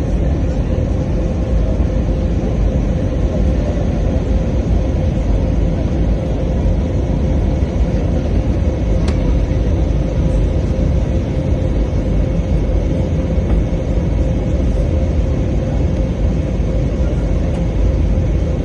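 Steady jet airliner cabin noise during the descent: a loud, even rumble of engines and airflow with a steady hum, and a faint click about nine seconds in.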